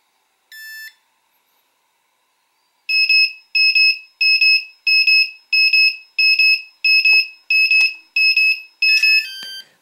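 Walkera Furious 320 quadcopter's lost-model alarm beeping after the transmitter is switched off: about ten loud, evenly spaced high beeps, roughly one every 0.7 seconds. A single short beep comes before them, and a quick descending run of tones sounds near the end.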